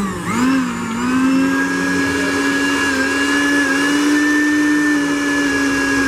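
Arno blender's motor base running with no jar fitted, a steady whine that rises in pitch over the first second as it comes up to speed, then holds. It is the repaired motor on its final test, running again.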